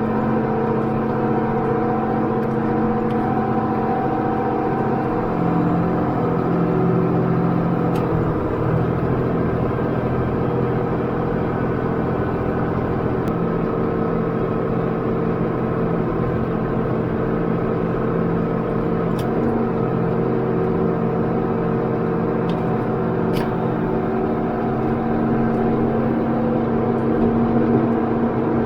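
Farm tractor's diesel engine running steadily under load, pulling a tillage implement through the soil, heard from inside the cab.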